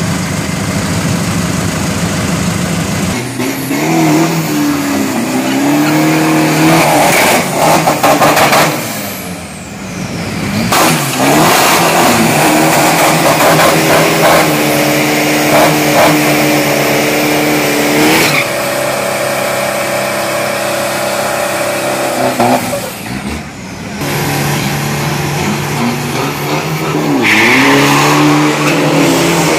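Diesel drag-race pickup truck's engine revving up and down repeatedly during a burnout, with its rear tyres spinning and squealing on the pavement, then revving hard again as it pulls away near the end.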